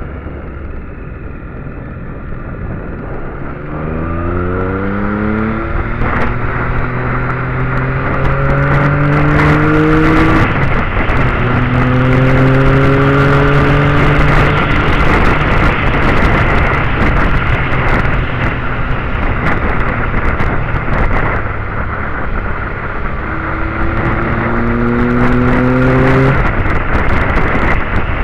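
Motorcycle engine pulling uphill, its pitch climbing and then dropping back at gear changes before holding steady at speed, with wind rushing and buffeting over the microphone.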